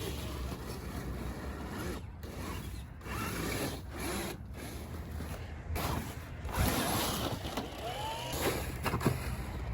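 Traxxas TRX-4 RC crawler's electric motor and geared drivetrain whirring in uneven spurts, with pitch sweeping up and down as the throttle changes, mixed with rubbing and scraping.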